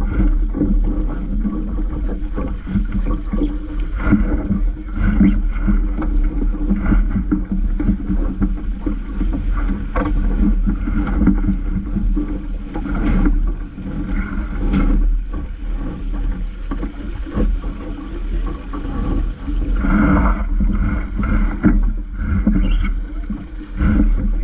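Vaucluse Junior sailing dinghy under way: steady wind rumble on the action camera's microphone over water washing against the hull, with occasional short, sharper sounds.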